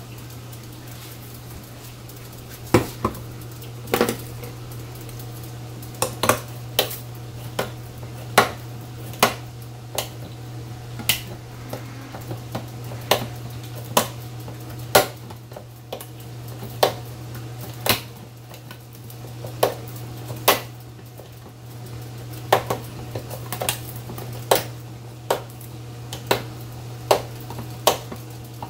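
Hand-held manual can opener being cranked around a tin can: sharp metal clicks and clanks come irregularly, about one a second, over a steady low hum. The opener is worn; its owner says it no longer works well.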